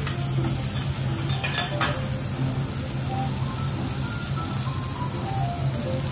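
Amadai (tilefish) fillets and scallops sizzling on a steel teppanyaki griddle, with a few sharp metal clinks about one and a half seconds in.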